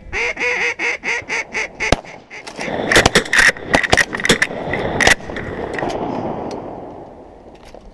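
Rapid, loud run of quacks on a duck call, cut off about two seconds in by a 12-gauge pump shotgun shot. A quick volley of several more shots from more than one shotgun follows, then fades out.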